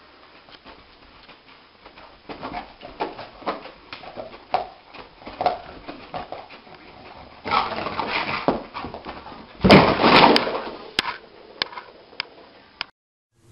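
A sleeping dog whimpering and giving short muffled woofs as it dreams. About seven seconds in, a louder burst of scuffling noise follows, loudest near ten seconds, as the dog scrambles up.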